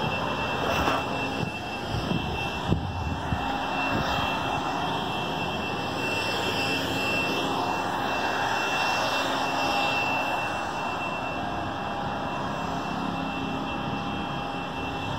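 A steady rushing drone with a faint steady high whine, swelling slightly midway; a few sharp knocks sound in the first four seconds.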